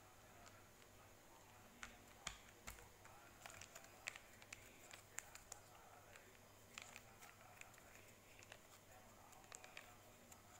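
Near silence: faint room tone with a low steady hum and scattered faint clicks and taps, clustered about two to five seconds in and again near the end.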